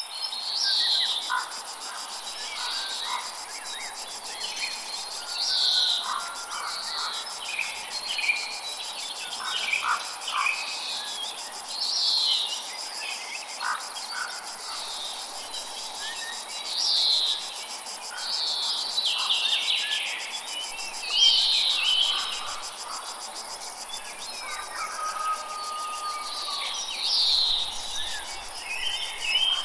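Jungle ambience: a steady high-pitched chorus of insects, with birds calling over it. Short falling bird calls come every two to three seconds and are the loudest sounds, with scattered shorter chirps and notes lower in pitch between them.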